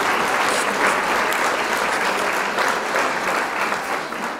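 A crowd applauding: dense, steady clapping that drops away right at the end.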